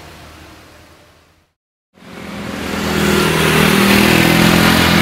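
A faint outdoor hiss fades out to a moment of complete silence. A motor vehicle's engine then fades in, grows louder for about a second and runs steadily.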